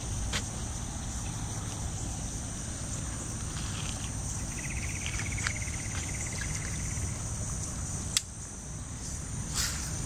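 A steady, high-pitched chorus of crickets or similar insects, over a low rumble of wind and handling. A lower, rapid trill runs for about two seconds midway, and a single sharp click comes about eight seconds in.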